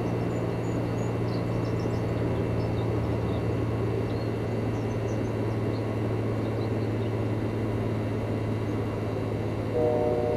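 A steady low mechanical rumble with a constant hum, with faint high bird chirps scattered through the first several seconds. Near the end, a chord of several steady tones sounds together.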